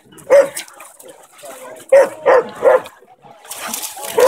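Airedale terrier barking: one loud bark, then three quick barks about a second and a half later. Water splashing starts near the end as a dog runs into the shallows.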